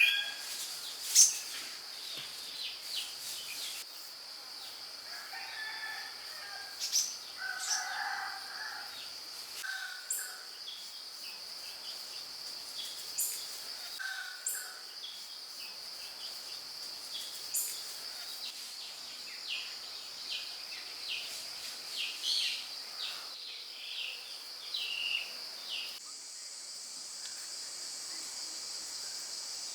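Rural outdoor ambience: a steady high-pitched insect drone with scattered bird chirps, and a rooster crowing a few times, most clearly about seven seconds in.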